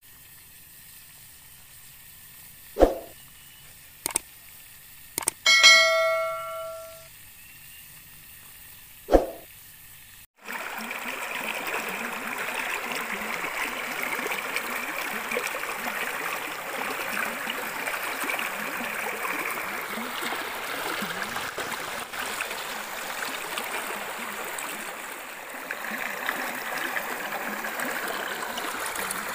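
A few sharp knocks and a single ringing bell-like chime that fades away, then, about ten seconds in, a sudden switch to a steady rush of water.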